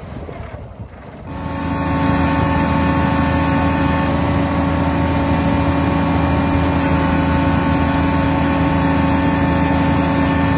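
John Deere 7810 tractor's diesel engine running at a steady speed, with an even drone that does not change. It is preceded by about a second of wind and outdoor noise.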